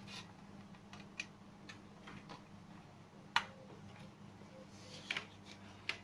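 Scattered light clicks and taps as cable connectors are handled and plugged in, the sharpest about three and a half seconds in, over a steady low hum.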